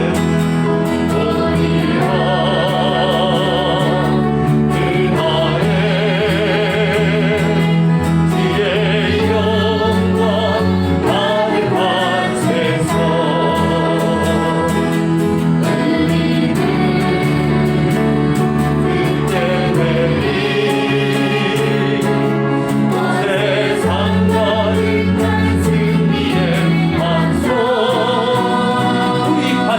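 Group of voices singing a Christian praise song, holding long notes with vibrato over a steady instrumental accompaniment.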